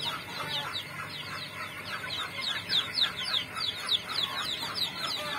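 A brood of ten-day-old chicks peeping all together, a steady stream of many short, falling cheeps overlapping one another.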